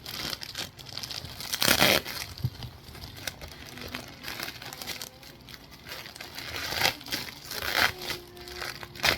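Packaging being torn open by hand: plastic wrapping crinkling and ripping in irregular bursts, loudest about two seconds in and again near the end.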